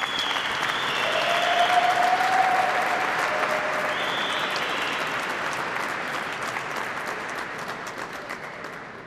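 Audience applauding: many hands clapping together, swelling to a peak about two seconds in and then slowly dying away.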